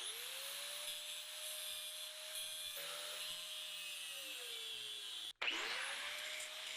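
Electric grinder grinding the steel nail headers. Its motor pitch rises as it spins up and sags under load near four seconds. After a brief break just past five seconds it spins up again.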